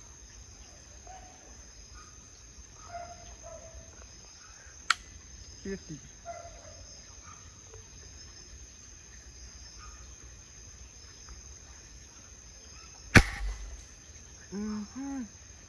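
Spring-piston air rifle fired once about 13 seconds in: a single loud crack with a low thump, over a steady chorus of crickets and insects. A single sharp click comes about five seconds in, and low voices murmur near the end.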